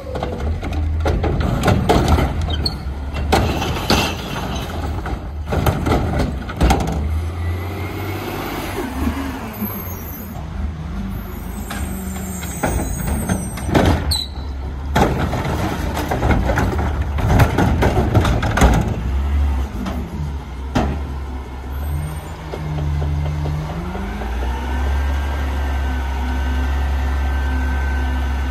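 Autocar ACX garbage truck working a recycling cart: repeated bangs and clatter of the cart being handled and tipped, with recyclables crashing into the hopper. From about two-thirds of the way in, the engine revs up with a rising whine and holds at high revs to drive the hydraulics.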